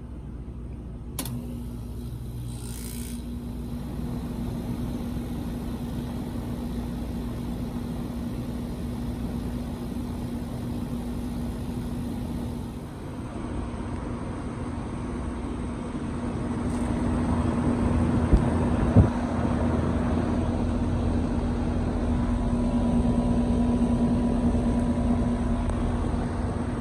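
2016 Goodman air conditioner starting up and running: a sharp click about a second in, then a steady hum. About halfway through, a louder rushing sound builds and holds, with two short thumps partway through it.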